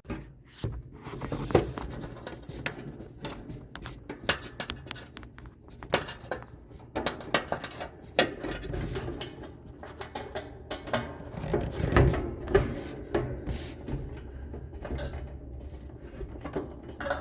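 Irregular clicks, clunks and rubbing of hands handling a clothes dryer's parts and wiring as it is reassembled, with a louder knock about twelve seconds in.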